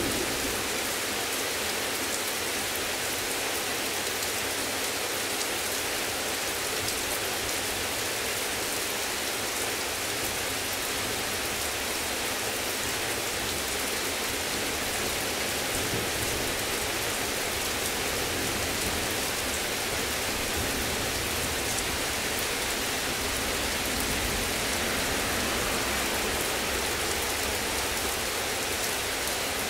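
Heavy thunderstorm rain falling steadily, an even hiss.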